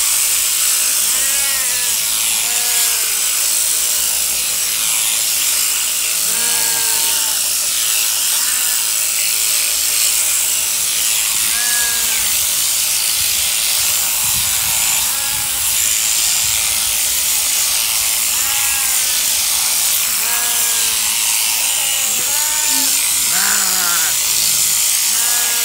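Overhead-drive sheep shearing handpiece running steadily as it clips through the fleece, a continuous high buzzing hiss. Short animal calls sound over it again and again.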